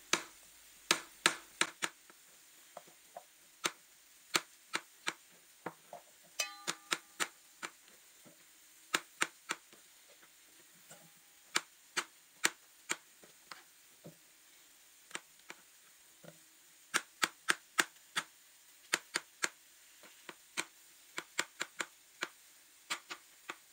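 Chef's knife slicing mushrooms on a plastic cutting board: sharp taps of the blade striking the board, coming in irregular runs of a few cuts with short pauses between.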